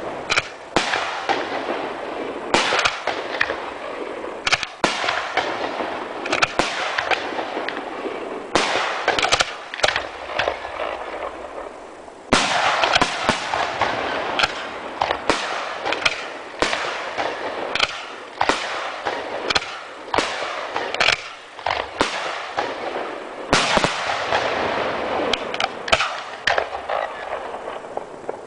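Aerial fireworks shells bursting in a professional display: repeated sharp bangs over a dense crackle. Two big surges of crackling come about twelve and twenty-four seconds in, each fading away.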